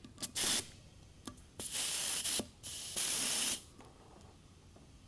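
Compressed air hissing from an Astro locking air chuck on a tire's Schrader valve stem: a short hiss, then two longer ones. The air is escaping around the chuck, a sign that it is not sealing on this valve.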